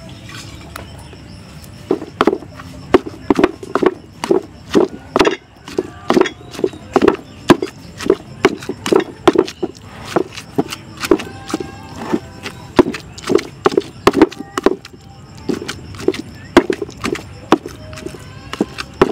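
Pestle pounding chili paste and fresh leaves in a mortar: a steady run of dull thuds, about two to three a second, starting about two seconds in.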